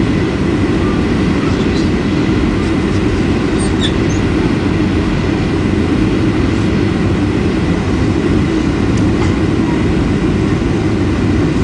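Steady loud rumble of airliner cabin noise from a landing jet, the engines and rushing air heard from inside the cabin.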